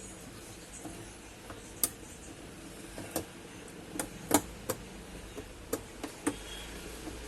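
Irregular sharp clicks and taps, about eight of them, with the loudest a little past the middle, over a faint steady hum.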